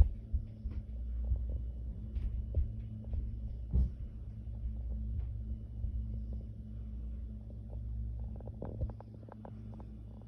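Muffled, irregular low thuds and rumbling from the flat upstairs coming through the ceiling, over a steady low hum. The sharpest knocks come right at the start and about four seconds in.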